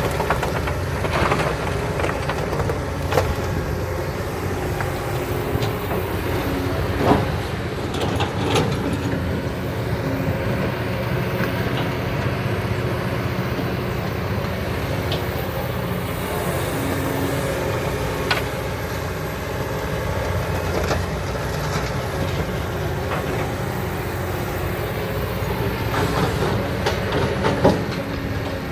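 Kobelco SK200 excavator's diesel engine running steadily under work, with scattered sharp clanks and knocks of its bucket and of sand and rock loading into a dump truck.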